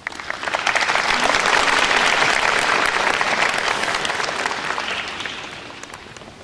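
Audience applauding in a large hall: it starts abruptly, swells within a second, holds, then fades away over the last couple of seconds.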